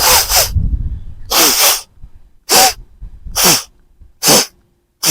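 Forceful exhalations blasted out through the nose, about six sharp blasts in quick succession, to drive the leftover water out of the nasal passages after jal neti nasal rinsing.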